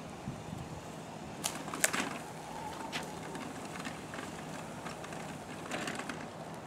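Quiet outdoor background with a faint, steady low hum and a few sharp clicks: a pair about one and a half to two seconds in, and a short cluster near six seconds.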